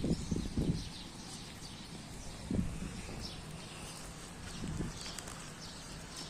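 Birds chirping faintly and repeatedly, with a few short, soft low sounds in between.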